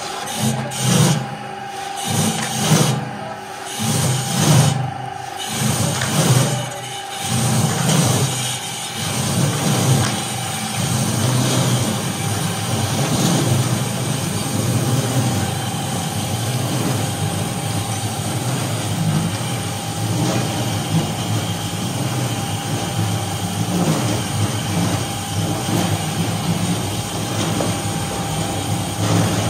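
Homemade veneer peeling lathe running, its electric motors humming while the knife shaves a turning log. For the first several seconds the cutting swells about once a second, as the knife bites the not-yet-round log once per turn, then it settles into an even, continuous peeling as a whole sheet of veneer comes off.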